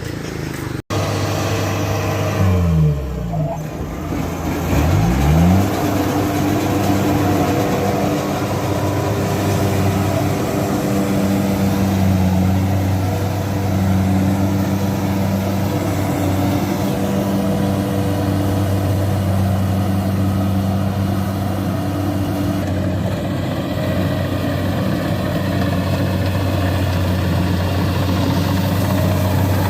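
Kubota CD 93 rice combine harvester's diesel engine running steadily as it works a soft, boggy paddy field, cutting slowly. A few seconds in, the low engine note dips and then climbs back up.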